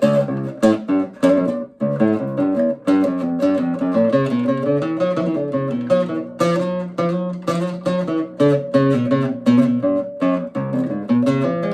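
Guitar played with the thumb, its nail striking the strings: a steady run of low single notes and bass lines with a bright, sharp attack on each note.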